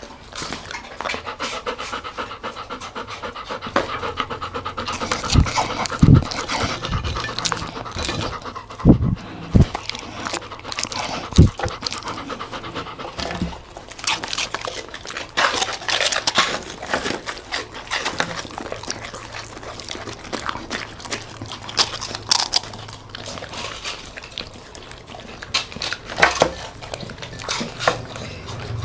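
A dog panting quickly while eating, with many sharp crunches and clicks of chewing food scattered throughout.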